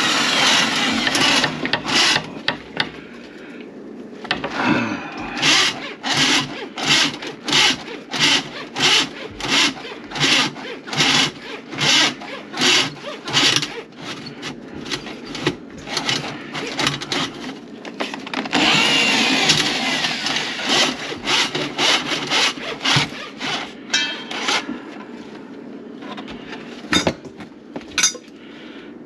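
Rhythmic scraping strokes, about two a second, with a few seconds of unbroken scraping partway through and two sharp knocks near the end.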